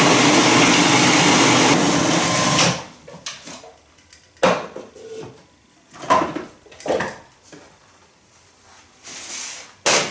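Food processor running, grinding hemp seeds, soaked sun-dried tomatoes, garlic and spices, which cuts off about two and a half seconds in. After it come several separate knocks and clatters as the bowl and lid are handled.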